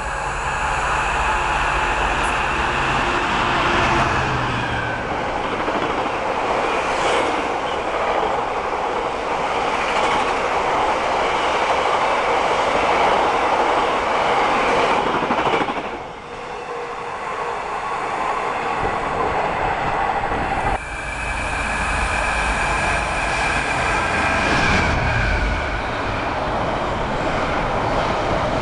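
Freight trains passing close at speed: a Class 66 diesel locomotive heads loaded coal hopper wagons past, their wheels rumbling and clattering over the rails. The sound breaks off abruptly about sixteen seconds in and again around twenty-one seconds. Near the end, a container train's wagons run past.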